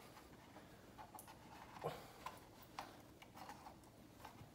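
Near silence with a few faint, scattered plastic clicks and taps from hands handling a Wharfedale speaker's front baffle and its plastic grille pegs, one of which has just snapped off.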